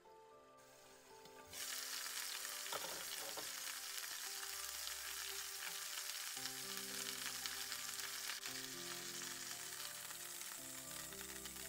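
A whole chicken frying in hot oil in a deep pan: a steady sizzle that turns suddenly much louder about a second and a half in.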